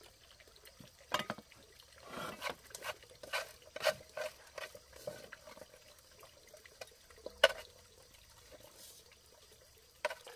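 Brief, intermittent water sounds broken by a few sharp clicks or knocks, the sharpest about seven and a half seconds in.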